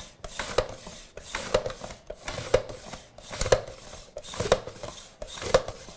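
Onion being sliced thin on a De Buyer Swing mandoline: the food holder pushed back and forth over the straight blade, a rasping slice with a knock about once a second.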